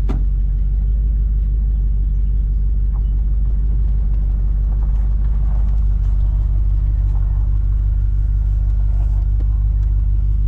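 A vehicle's engine running steadily: an even, low rumble and hum with no change in pitch, and one sharp click right at the start.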